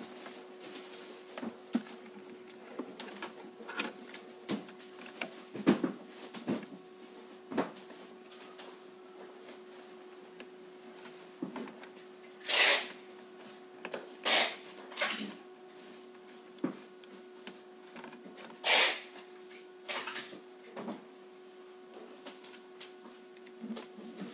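Hands working on a metal electronics panel: scattered small clicks and light knocks from a screwdriver, wires and parts on sheet metal, with a few short louder hissing rustles around the middle. A steady faint hum sits underneath.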